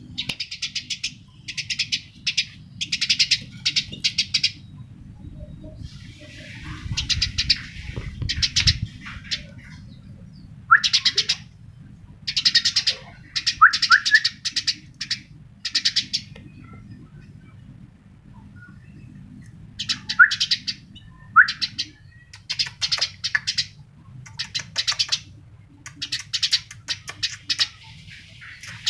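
A bird calling in short, rapid chattering trills, one burst after another with brief gaps, with a few quick upward-slurred notes mixed in.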